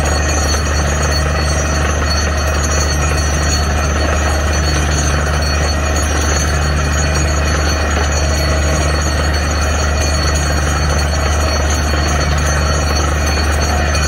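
Truck-mounted DTH borewell drilling rig and its air compressor running steadily: a loud, unbroken low drone.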